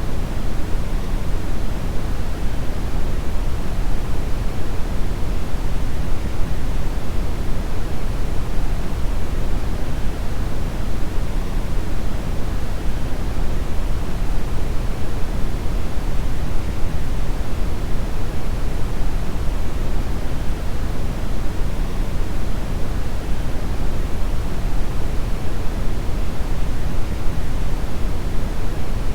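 Synthetic brown noise: a steady, deep rumbling hiss with most of its energy in the bass and little in the treble, unchanging throughout.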